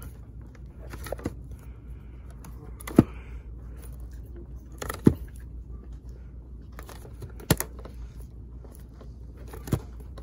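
Picture frames knocking against one another as they are flipped forward one at a time in a box: a sharp clack every two seconds or so, with lighter clicks between and a steady low hum underneath.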